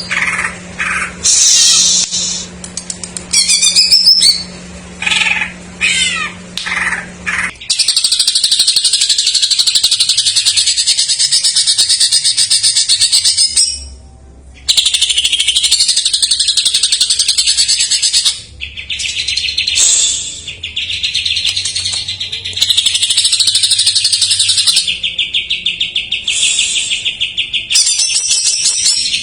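Cucak ijo (leafbird) singing loudly, its song made up of imitations of other songbirds. It opens with a run of separate chirps and short whistled phrases, then goes into a continuous fast chattering trill. The trill stops briefly about halfway and later carries on lower in pitch.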